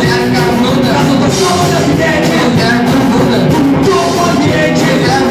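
Live rock band playing loud: electric guitars and a drum kit, with a man singing into a microphone.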